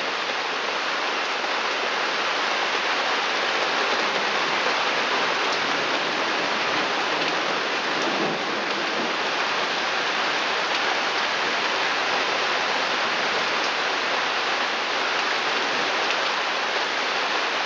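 Pouring rain falling steadily: an even, unbroken hiss.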